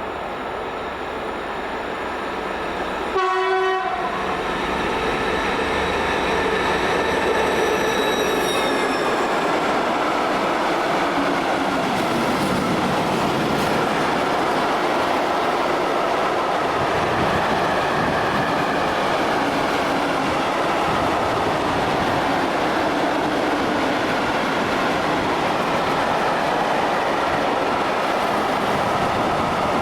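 Class 232 diesel locomotive giving a short horn blast about three seconds in, its sound falling in pitch as it passes, then a freight train's wagons rolling by with a steady clatter of wheels on the rails.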